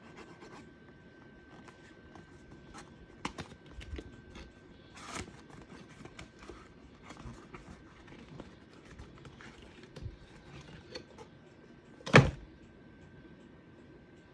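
Perfume box and bottle being handled: scattered light clicks, taps and rustles, with one loud thunk about twelve seconds in.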